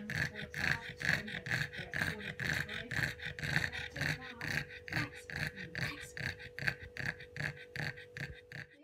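Pug panting rapidly with its mouth open, quick breathy huffs about four to five a second, over a steady faint electrical hum.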